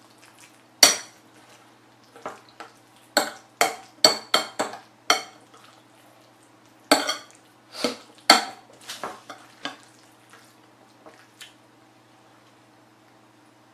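Metal spoon clinking and scraping against a ceramic bowl while stirring and scooping sauce-coated rice: a quick series of sharp clinks that thins out and stops for the last few seconds.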